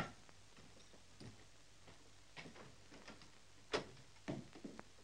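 Boot footsteps and knocks on a wooden floor, a few irregular steps with the loudest knock near the end, over a faint hum from an old film soundtrack.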